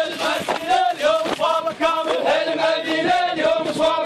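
Men chanting an Iraqi hosa, the rhythmic tribal chant, in short repeated phrases with several male voices overlapping.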